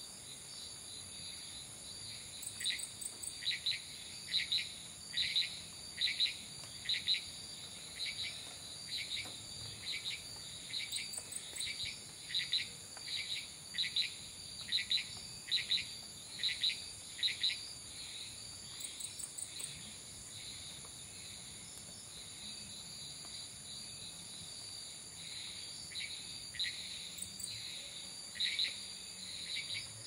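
Night insect chorus of crickets and cicadas: a steady high-pitched trilling, with light wind. Over it a short chirping call repeats about once a second, starting a couple of seconds in, pausing for several seconds past the middle, then resuming near the end.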